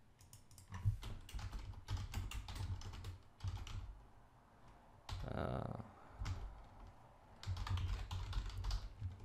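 Typing on a computer keyboard in two bursts of quick keystrokes, the first starting just after the beginning and lasting about three seconds, the second from about seven and a half seconds. Between them, about five seconds in, there is a brief soft noise.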